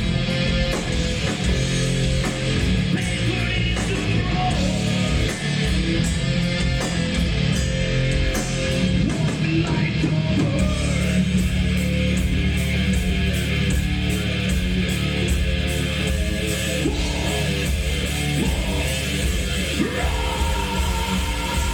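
Heavy metal song playing: distorted electric guitars and drums, with sung or shouted vocals in places.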